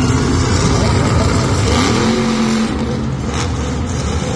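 Monster truck engine running hard and loud, revving as the truck drives and rears up onto its back wheels.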